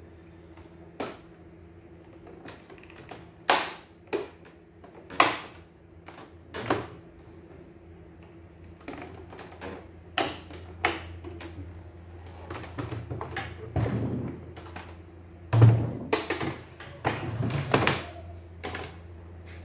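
Irregular plastic clicks and knocks as the white plastic side cover of a CNY E900 embroidery machine is pressed and snapped back onto its frame, with a denser run of knocks near the end. A steady low hum runs underneath.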